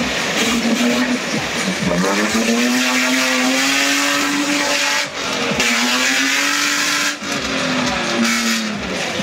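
Off-road buggy's engine revving hard as it claws out of a mud pit. The revs climb and are held high, with two sharp drops about five and seven seconds in.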